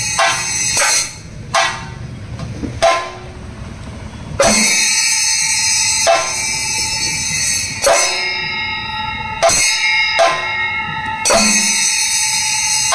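Thayambaka ensemble playing: chenda drums struck with sticks over the steady ringing of ilathalam hand cymbals. About a second in, the cymbals and dense drumming drop away to a few sparse, loud drum strokes, and the full ensemble comes back in around four and a half seconds.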